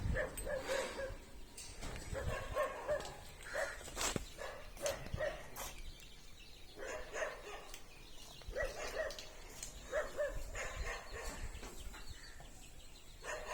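Animals calling in many short, repeated cries, some in quick runs, with a few sharp knocks about four and five seconds in.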